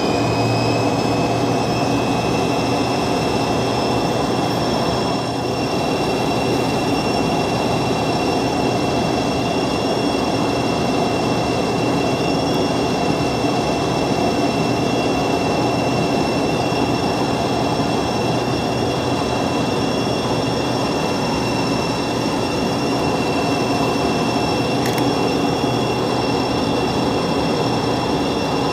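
Yakovlev Yak-40's rear-mounted Ivchenko AI-25 engines heard from inside the passenger cabin in flight: a loud, steady rush of air and engine noise with a high whine over it. The whine rises slightly in pitch about a second in.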